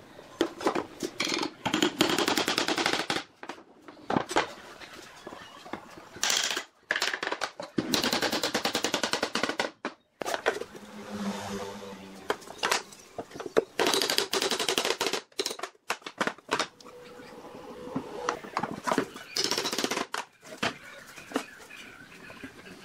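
Wood glue squeezed from a plastic squeeze bottle onto wooden joints, sputtering and crackling in several short bursts of rapid clicks.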